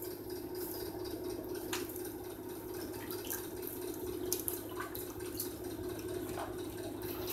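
Faint, irregular small clicks and taps over a steady low hum.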